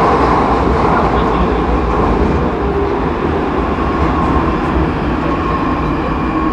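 Prague metro train running through a tunnel, heard from inside the carriage: a steady, loud rumble with a faint held whine.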